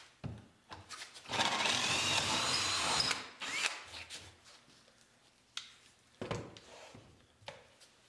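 Cordless drill boring a starter hole through a wooden board for a jigsaw blade. It runs for about two seconds with its motor pitch rising, followed by a few light knocks as the tools are handled.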